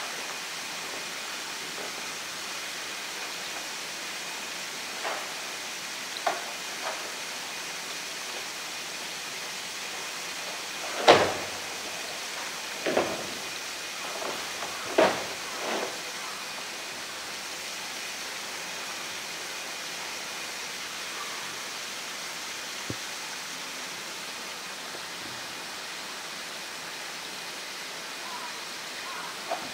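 Blue plastic drum knocking against concrete as a polar bear pushes and rolls it: a few light knocks, then a cluster of louder ones, the loudest about eleven seconds in. A steady background hiss runs underneath.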